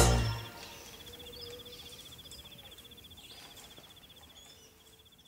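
Brass-band music stops, leaving a short fading tail. Then comes a faint, steady, high-pitched insect trill with a few faint chirps, fading out near the end.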